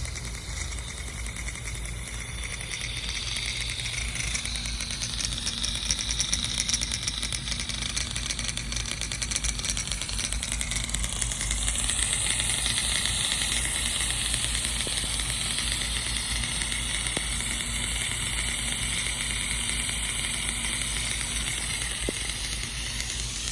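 Vintage Rain-O-Matic No.10 ball-drive rotary sprinkler running: a steady hiss of water jetting from its nozzles, with a fast, even rattle from the ball drive turning the head. It gets a little louder after a few seconds and then holds steady.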